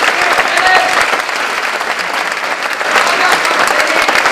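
Theatre audience and cast applauding, a dense, steady clapping with a few voices faintly mixed in.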